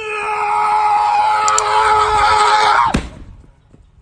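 A long, loud scream held on one slightly falling pitch for nearly three seconds, then sliding sharply down and cutting off.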